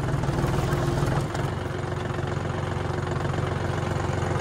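Tractor's diesel engine running steadily with an even throb, easing slightly about a second in.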